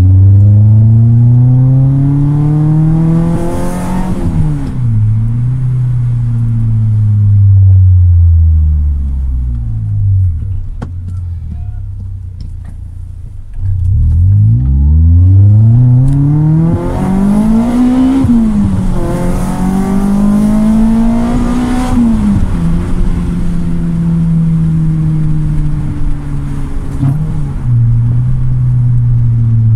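Car engine under way, its pitch climbing and then dropping sharply several times, as when accelerating through gear changes, with steady cruising stretches and a quieter lull near the middle.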